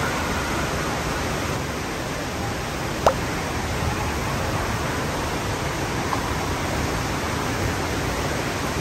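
Steady rush of running water, with one sharp click about three seconds in.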